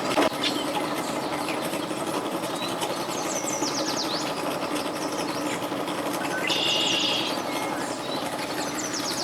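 An engine running steadily with a low hum, and bird calls over it: quick falling whistles about three and a half seconds in and again near the end, with a short higher call about six and a half seconds in.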